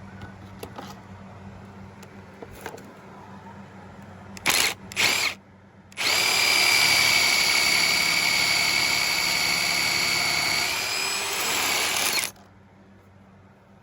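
A Milwaukee cordless drill boring a pocket hole into a wooden post with a pocket-hole jig's drill bit. There are two short trigger blips, then about six seconds of steady drilling with a whine that sags slightly near the end before it stops.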